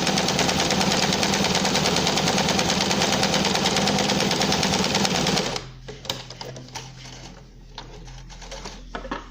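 Domestic sewing machine fitted with an embroidery presser foot, stitching continuously at high speed for free-motion embroidery, then stopping suddenly about five and a half seconds in. Afterwards only soft handling and a few small clicks as the fabric and machine are handled.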